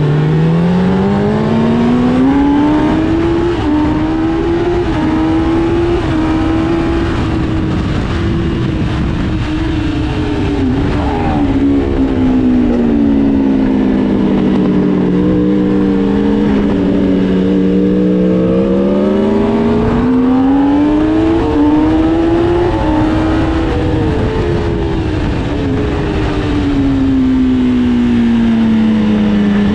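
Sport motorcycle engine at speed on a racetrack, pitch climbing under acceleration and dropping off several times as the rider works through corners.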